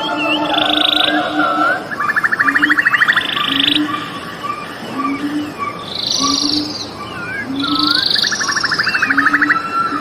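A nature soundscape of frogs calling: a low call repeats about every two-thirds of a second, and rapid buzzing trills come in bursts of a second or two. Birds chirp and whistle briefly over them.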